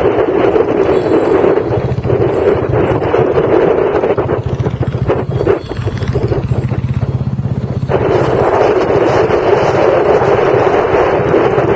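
Motorcycle engine running at riding speed with wind rushing over the microphone. Between about two and eight seconds in, the wind noise drops away and the engine's steady pulsing note comes through clearly, then the wind rush returns.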